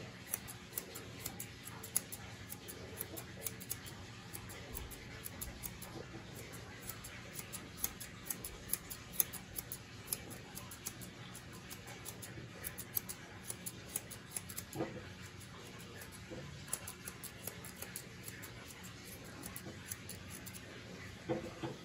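Grooming shears snipping through a dog's curly coat: many short, quick snips in runs of several at a time.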